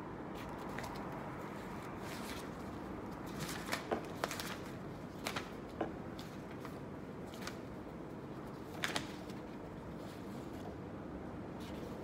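Paper envelopes being handled and leafed through on a stack, with several short crisp rustles and taps of paper, bunched together about a third of the way in and twice more close together later, over a steady low background hum.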